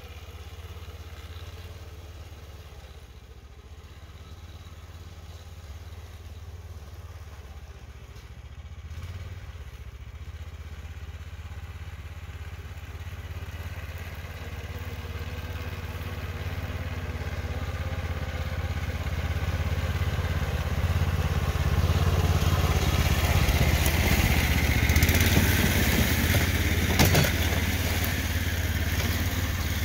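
Snowdog tracked snow machine's small engine running steadily while it pulls loaded sleds through snow, growing louder over about twenty seconds as it draws near. A single sharp knock sounds near the end.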